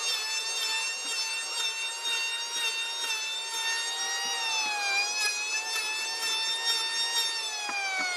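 Handheld electric planer running with a steady high whine as its blades cut into a wooden block. The pitch sags briefly about halfway through and again near the end, then recovers.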